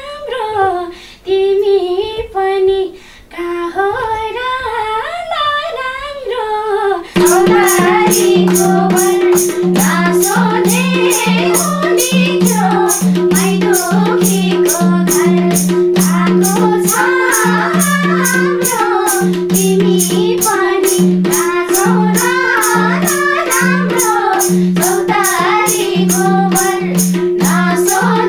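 A woman singing a Nepali lok dohori melody alone. About seven seconds in, a madal hand drum comes in with an even beat under a steady drone, and the singing carries on over them.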